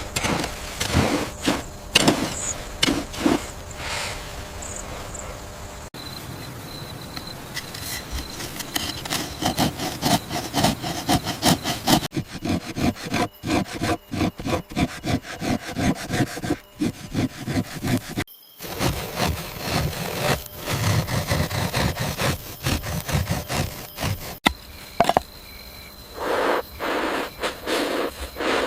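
Repeated rhythmic rubbing or sawing strokes on wood, a few strokes a second, in several short stretches cut one after another.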